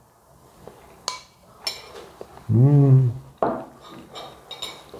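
A spoon clinking against a ceramic dessert plate several times, and the plate being set down on a wooden countertop near the end. About halfway through, a short hummed 'mmm' of someone tasting.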